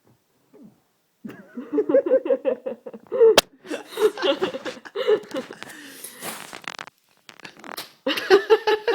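Hearty laughter in rapid rhythmic bursts, broken about three and a half seconds in by a single sharp crack, with breathy gasping laughter after it and a fresh burst near the end.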